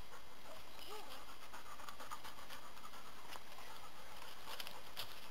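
Footsteps and hooves rustling and crackling irregularly through dry leaf litter and twigs on a woodland path.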